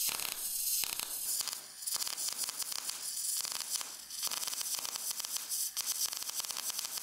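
MAG welding arc from an EWM Picomig 180 puls, crackling and sputtering irregularly, with brief dips about 2 and 4 seconds in. This uneven stutter is the sound of a weld set too cold: too little power and too much wire for the plate thickness.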